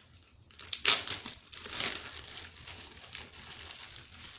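Plastic packaging crinkling and crackling as it is handled, with a sharp loud crackle about a second in and another near two seconds.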